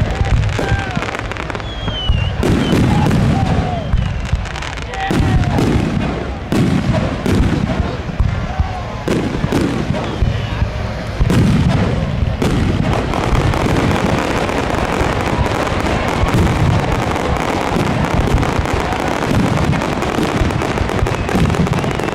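Demolition derby cars running their unmuffled engines hard in repeated surges, with a string of loud bangs; from about halfway through it settles into a denser, steady din.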